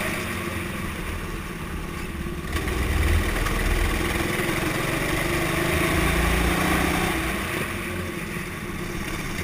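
Rental kart's small engine running under throttle, heard from an onboard camera on the kart. The engine note swells through the middle and eases back shortly before the end as the kart slows into a corner.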